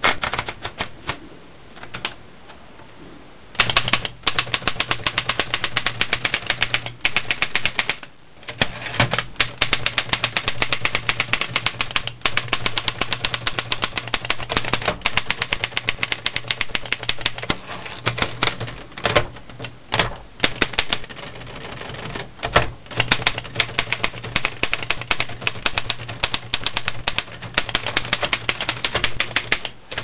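A 1928 Underwood No. 5 manual typewriter being typed on: fast runs of sharp keystrokes as the typebars strike the platen, broken by short pauses, with a few harder single strikes.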